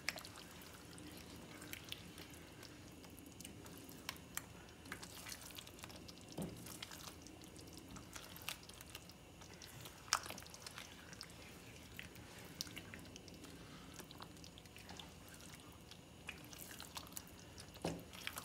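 Spatula stirring thick chicken curry in a pan: faint wet squelching with scattered light clicks and scrapes of the utensil against the pan.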